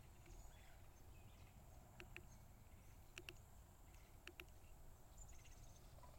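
Quiet outdoor ambience on a grassy forest trail: soft footfalls on sand and grass, heard as paired ticks about once a second, over a low wind rumble. A short, faint, high bird trill comes in near the end.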